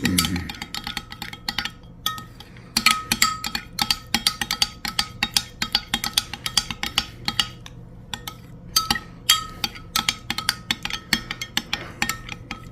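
Spoon stirring a thick sauce glaze in a bowl, clinking quickly and unevenly against the bowl's side; each clink rings briefly, and there is a short pause partway through.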